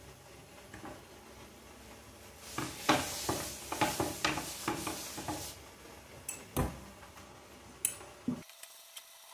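A nylon spatula clattering and scraping against a non-stick dosa tawa and a plate, with a run of quick clicks and knocks lasting a few seconds, then a single heavier knock and a few light clicks near the end.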